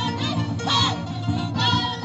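Andean carnival music: high-pitched singing in short phrases, about one a second, over a steady instrumental accompaniment.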